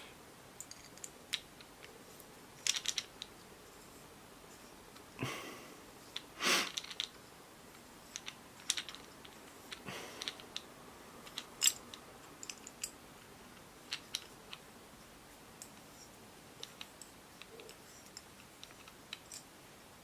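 Scattered small clicks, taps and scrapes of a clamp's screws being tightened and the plastic camera housing being handled, with a few louder handling noises near a quarter and halfway through.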